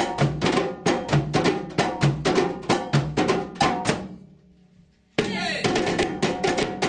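Drums and percussion playing a fast, even rhythm of strikes. The playing dies away about four seconds in and starts again abruptly at full strength about a second later.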